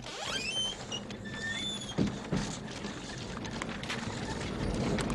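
Film sound effects of a poltergeist-haunted bedroom: a churning din of whirring and clatter with high whistling tones sliding in pitch, and a couple of knocks about two seconds in, growing louder.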